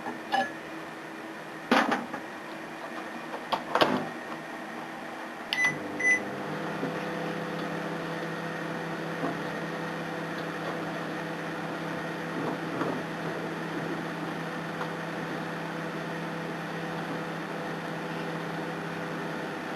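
A few sharp knocks, then two short keypad beeps about six seconds in. Right after them a microwave oven starts up and runs with a steady hum.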